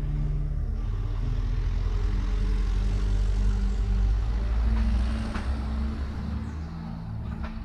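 Soft ambient background music with long held notes, over a low rumble that builds for about five seconds and then eases off. A few faint clicks come near the end.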